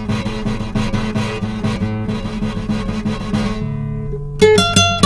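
Solo acoustic guitar playing a fast run of plucked notes. About four seconds in, it changes to a few bright single notes that ring on.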